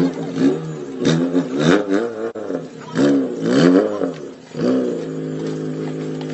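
A Renault Clio's engine being revved in a string of quick rising-and-falling blips, then held at a steady raised speed for the last second and a half or so.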